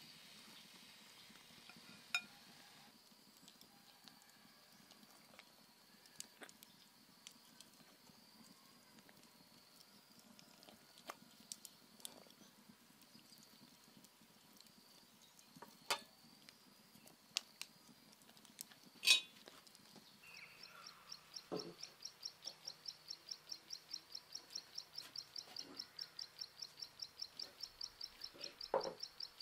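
Scattered light clinks of wooden chopsticks against a ceramic bowl and metal pot over a faint, steady high hiss, with one sharper knock about two-thirds of the way in. After that a high chirping starts and repeats about four to five times a second.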